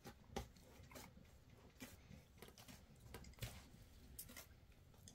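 Faint soft handling sounds of round flatbreads being lifted and pressed by hand inside an aluminium pot, with scattered light taps.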